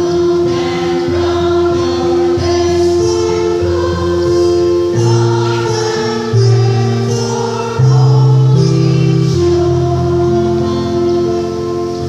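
Women's church choir singing a hymn-like song over sustained instrumental chords and bass, fading near the end.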